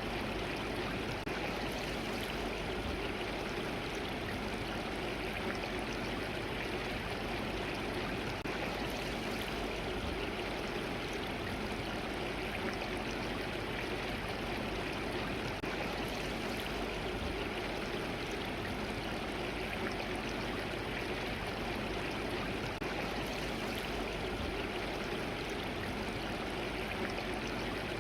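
Mountain valley stream, water flowing and splashing steadily with an even rushing sound.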